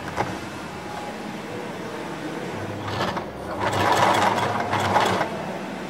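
Willpex WP653 household sewing machine sewing a short run of about five or six stitches for the bar-tack at one end of a four-step buttonhole, running for about two seconds from about halfway in.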